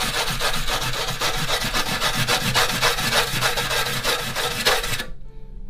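Wire brush scrubbed hard back and forth over a fresh MIG weld seam on a steel mower deck, cleaning off spatter and scale. It makes a rough, rapid scraping that stops abruptly about five seconds in.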